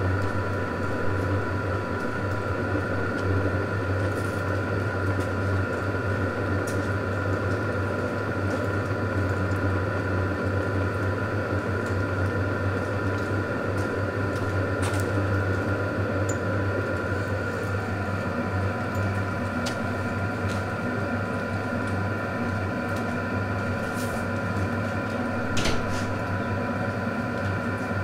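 XVentures portable diesel heater running steadily shortly after start-up, with its case closed and a muffler on the exhaust: a steady low drone from the blower and burner with a faint steady high whine over it and a few faint clicks.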